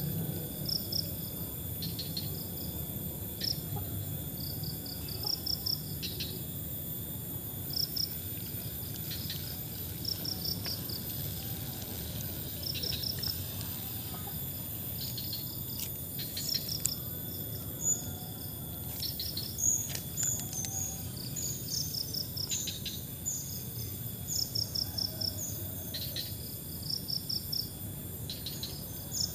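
Crickets chirping in short pulsed trains of a few notes each, repeating every second or two over a steady low outdoor background. Some higher, quicker chirps join in around the middle.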